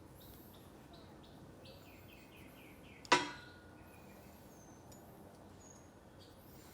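A single sharp metallic clank about three seconds in, ringing briefly, as a metal tool or part is knocked or set down. Faint bird chirps sound in the background.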